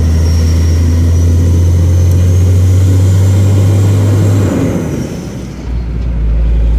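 Vehicle engine heard from inside the cab, pulling steadily with a faint high whine that rises and then falls. About four and a half seconds in the engine note drops and goes briefly quieter, then settles into a lower steady note.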